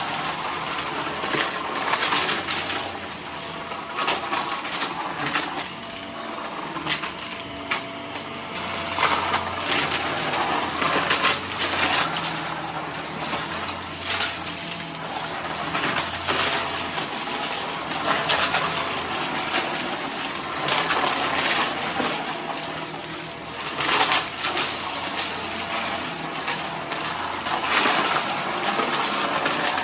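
Vacuum cleaner running and sucking up scattered dry debris, which clatters and crackles up through the machine in irregular bursts over a steady motor whine.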